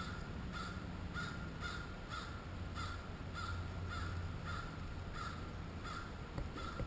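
An animal giving a steady series of short, harsh calls, about two a second and a dozen in all, stopping shortly before the end.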